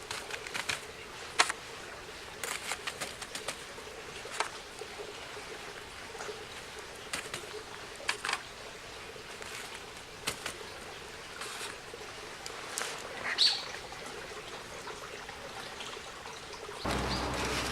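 Wood campfire crackling, with irregular sharp pops from the burning firewood. A low steady noise comes in near the end.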